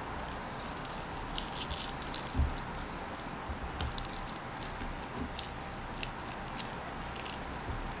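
Fingers handling raw pork belly and green onion pieces on a wooden cutting board, rolling the meat around the onion: soft, sticky, crinkly handling noises with scattered small clicks and one soft knock on the board, over a steady background hum.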